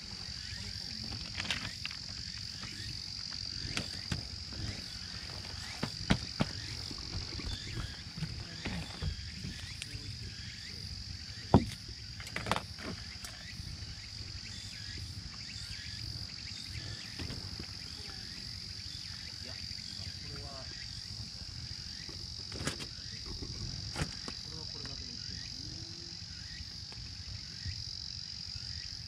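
Steady, high-pitched chorus of insects, crickets or similar, shrilling without a break. A few short clicks and knocks come over it, the loudest about halfway through.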